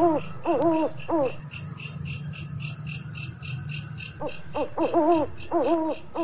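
Night ambience: steady high insect-like chirping pulsing about four to five times a second, with two runs of short, arched, pitched animal calls, one at the start and one about four seconds in, over a low steady hum.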